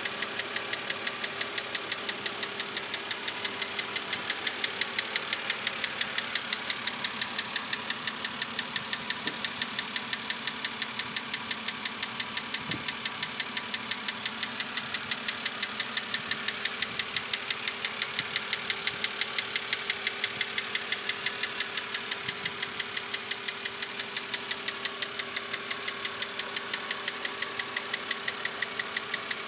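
BMW Z4 3.0si N52 inline-six engine running steadily with a rapid, even knocking tick. The knock has not been cured by replacement lifters, and the owner hopes a new cylinder head will get rid of it.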